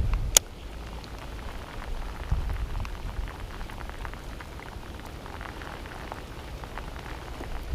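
Hard rain falling steadily, a dense patter of drops, with a single sharp click about half a second in.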